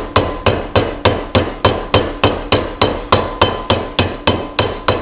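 Soft-faced mallet striking an annealed copper disc over a forming tool held in a vise, flanging a boiler end plate with glancing blows. The blows are even, about three a second, each with a short ring.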